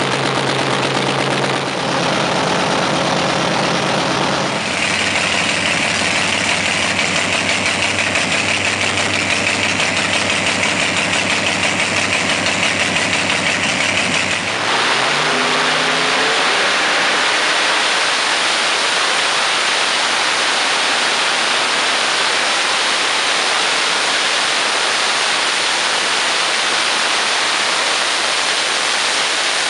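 Pontiac big-block V8 drag-racing engine on an engine dyno, running through short open headers. It runs steadily for about the first half. Then the throttle is opened, the pitch climbs, and it holds a loud, even roar under dyno load.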